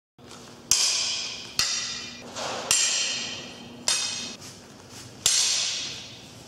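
Steel messer blades striking together five times, about a second apart, each clash ringing out and dying away.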